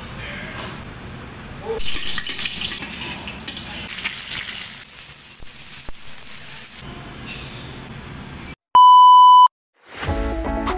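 Strips of upo (bottle gourd) and carrot sizzling as they are sautéed in a wok. About nine seconds in, a loud steady electronic beep lasts under a second, and music starts near the end.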